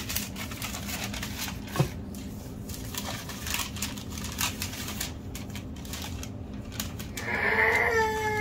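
Parchment paper rustling and crinkling as it is lifted and pressed flat over a disc of cornmeal dough, with a single sharp knock about two seconds in. Near the end a child's voice starts a long, wavering sound.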